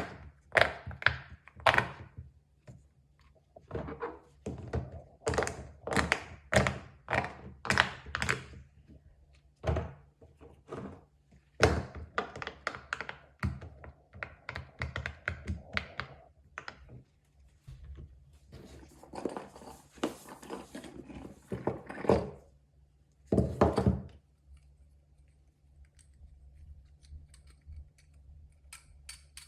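Fidget toys being pressed and handled: an irregular series of dull pops and thunks, often in quick runs, with a few short pauses and a quieter stretch near the end.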